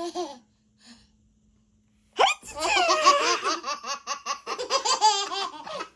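A small child laughing hard: a long run of rapid, high-pitched 'ha-ha' pulses that starts about two seconds in, after a short vocal sound near the start.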